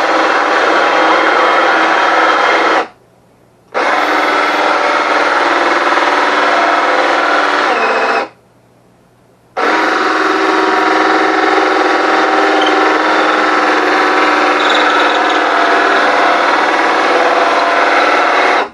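Power drill turning a hole saw, cutting through very hard plywood: a loud, steady cutting noise that stops twice for about a second and starts again.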